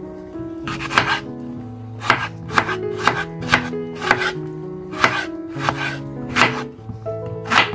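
Kitchen knife chopping a tomato on a bamboo cutting board: about a dozen sharp blade-on-board knocks, roughly half a second apart, starting just under a second in. Background music plays underneath.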